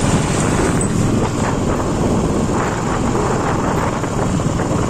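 Motorcycle riding along a road: steady engine and road noise mixed with wind rushing over the microphone.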